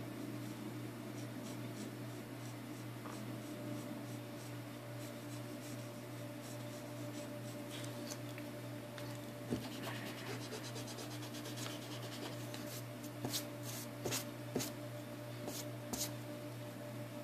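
Mechanical pencil scratching on paper as lines are sketched, over a steady low hum. Several sharp taps or clicks come in the second half.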